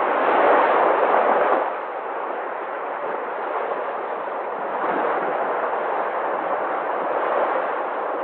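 Sea waves breaking and washing ashore, a continuous rushing surf. One wave surges loudest in the first second and a half and eases off, and another swells from about five seconds in.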